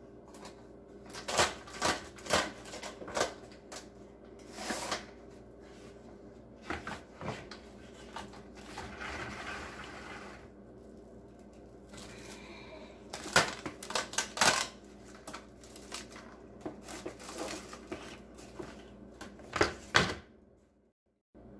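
Plastic cling wrap crinkling and crackling as it is pulled from its box and stretched over a glass baking dish, in irregular sharp crackles with a longer rasping hiss partway through.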